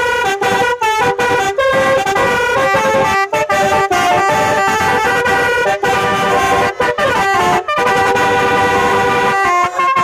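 Basuri telolet musical air horns playing a tune: loud chords of horn notes that switch pitch several times a second, with short breaks between phrases.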